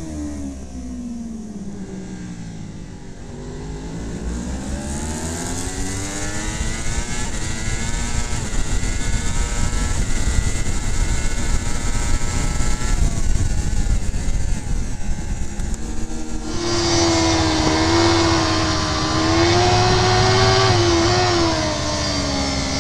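Racing superbike engines heard from onboard at full race pace, with wind rush. The engine note drops under braking for a corner, then climbs again under acceleration. The sound switches abruptly twice to a different bike's engine, the last one louder and holding a high, steady note before falling near the end.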